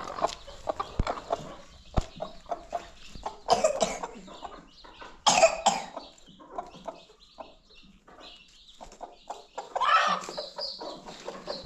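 Chickens clucking in a run of short, irregular calls, with louder calls about five seconds in and again near the end.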